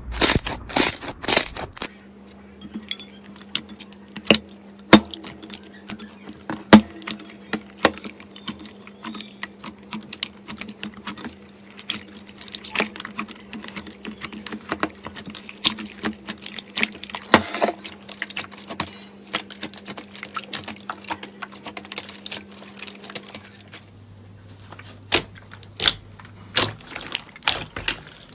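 Slime being squeezed, stretched and poked by hand, making irregular wet clicks and pops, a few of them sharp and loud. It opens with quicker, regular crunches, and a faint steady hum lies behind most of it.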